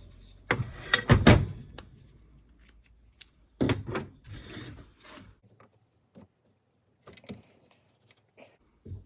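Hand tools and the circular saw's plastic housing being handled on a bench: a few sharp knocks and clatters in the first second and a half and again a few seconds in, then scattered faint clicks.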